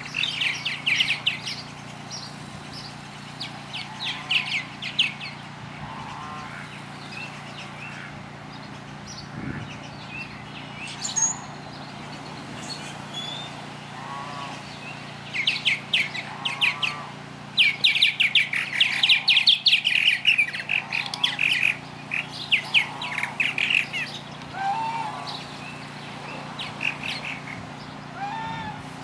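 A swan goose calling with short, repeated honks, amid loud bursts of rapid, high chirping from other birds.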